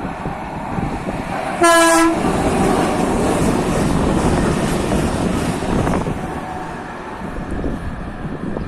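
A train passing close by, its running noise loud and steady, sounding one short horn blast of steady pitch about two seconds in; the noise fades slowly toward the end.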